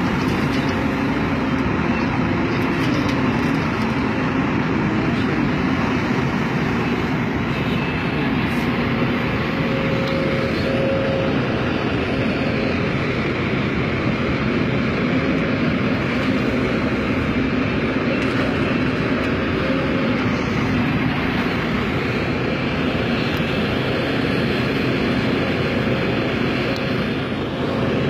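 Hidromek 300LC crawler excavator's diesel engine running steadily under load as it digs and loads a dump truck. Its note shifts a little up and down with the working movements.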